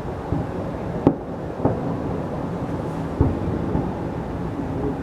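Fireworks salute shells bursting: about four separate booms, the sharpest about a second in, over a steady low rumble.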